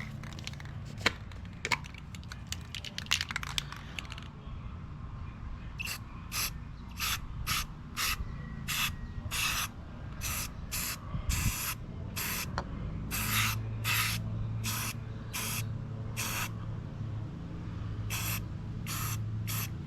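A rust-prevention pre-treatment sprayed onto a corroded wheel in a quick series of short spray bursts, roughly one or two a second, starting about six seconds in after a few light handling clicks.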